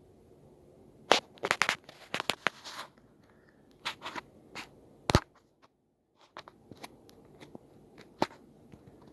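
Faint steady hum of a ceiling fan running on high, overlaid by irregular sharp clicks and crackles, clustered in the first half and sparser later.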